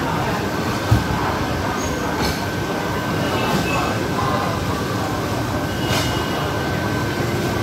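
Steady eating-hall din: a constant ventilation-fan hum with a thin high whine, faint indistinct chatter, a thump about a second in and a couple of sharp clicks around two and six seconds.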